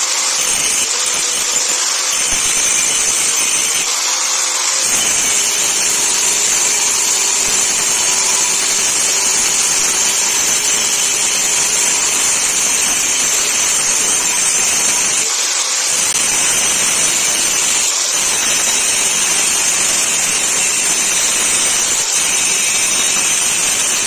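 Handheld angle grinder running steadily with a high whine, its abrasive disc grinding the steel blade of a billhook (aruval sickle).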